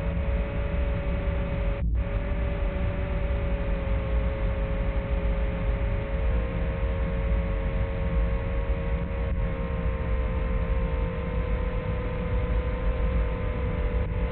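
Small FPV quadcopter's motors whining steadily under a constant rush of noise, the whine drifting slightly in pitch, with a brief dropout about two seconds in.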